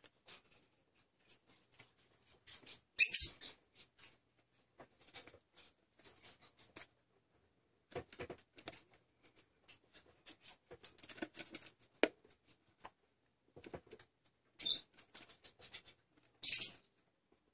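Parrotlet pecking and digging through seed in a clear plastic feeder: scattered clicks, ticks and seed rattle, with three louder short bursts about 3 seconds in, near 15 seconds and near 16.5 seconds.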